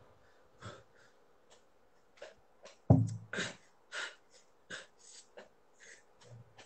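A string of short rustles and bumps from clothing and hands moving close to a phone's microphone, about a dozen in a few seconds, the loudest a dull thump about three seconds in.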